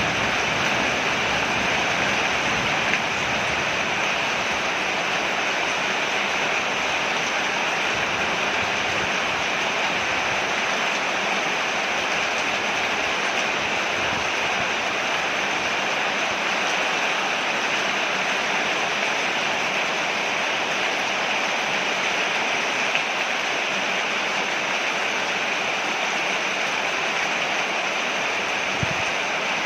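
Steady heavy rain falling on a porch, an even unbroken hiss of water.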